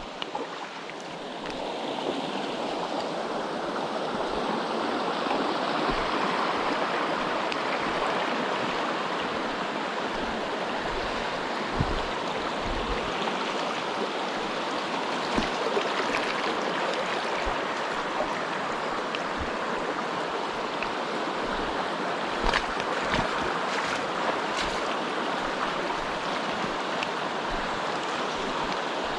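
Mountain stream rushing steadily, swelling over the first couple of seconds and then holding, with a few sharp knocks partway through.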